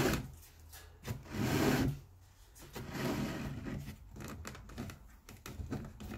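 Long lacing being drawn through punched holes in a leather rifle scabbard held in a wooden stitching horse: two long pulls of the lace dragging through the leather, about a second each, the first the louder. Then a run of small clicks and knocks.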